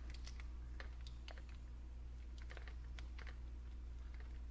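Faint, irregular clicks and taps from a mini hot glue gun being worked against the lamp's plastic housing, over a steady low hum.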